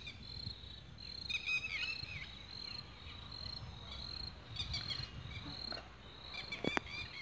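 An insect chirping in a high, even pulse about twice a second, with small birds twittering briefly about a second and a half in and again near the end. A sharp click sounds near the end.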